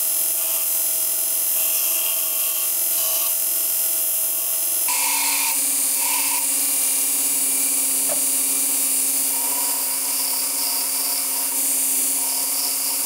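Belt grinder running with its abrasive belt grinding the steel of an old axe head: a steady motor whine under a high grinding hiss, which shifts in pitch about five seconds in.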